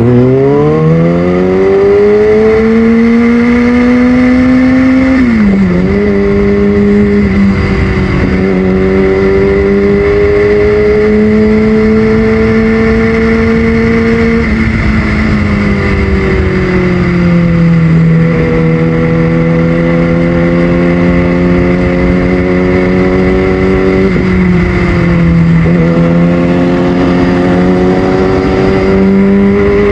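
Kawasaki ZX6R inline-four with a Yoshimura exhaust, ridden at street speed. It pulls up through the revs at the start and drops sharply at a gear change about five seconds in. After that it cruises, its pitch slowly rising and falling, with further drops around a quarter, half and four-fifths of the way through.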